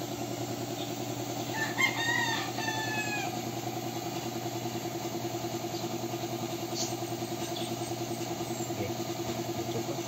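A rooster crows once, about two seconds in, a falling call lasting over a second. Under it a small engine runs steadily with a fast, even pulse.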